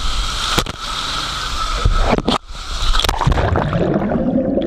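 Water rushing and sloshing around a rider going down a water slide, with a few sharp knocks about two seconds in; from about three seconds in the sound turns muffled.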